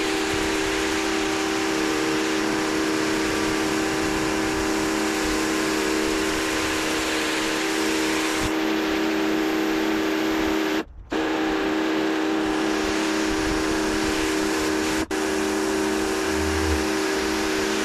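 Karcher K2 electric pressure washer running steadily: a constant motor-and-pump hum under the hiss of the water jet spraying onto concrete. The sound drops out for a split second twice, about eleven and fifteen seconds in.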